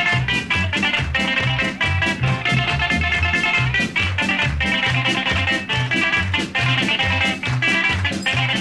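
Greek-style dance music: a bouzouki playing a melody over a drum kit's steady beat.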